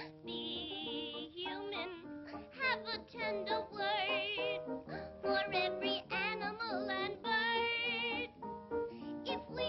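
A high, childlike female singing voice with a wide, fast vibrato, over instrumental accompaniment, on an early 1930s cartoon soundtrack.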